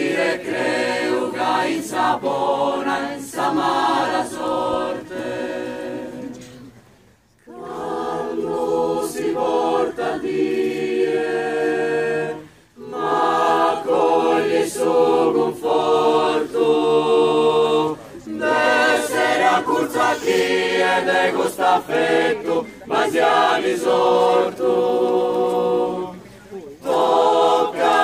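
Women's choir singing a cappella in long phrases, several voices together, with short pauses between phrases.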